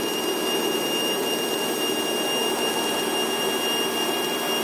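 Steady drone of a light airplane's piston engine and propeller, heard inside the cabin in cruise, a constant rushing noise with a few fixed whining tones over it.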